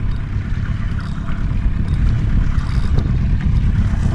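25 hp outboard motor running steadily at trolling speed, with water churning in its wake.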